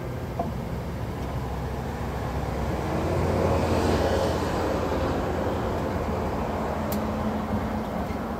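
A heavy lorry passing close by: engine and tyre noise swell to their loudest around four seconds in, then ease off. Honeybees buzz around an open hive, and there is a single sharp click near the end.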